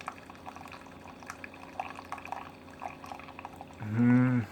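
Keurig K-Select single-serve coffee maker dispensing coffee into a cup: a soft trickle with small drips. Near the end, a short hummed voice sound.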